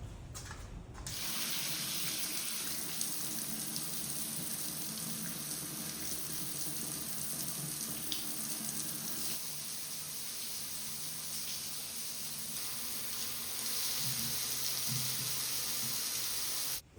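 Water running from a tap into a sink: turned on about a second in, running steadily, and shut off abruptly just before the end.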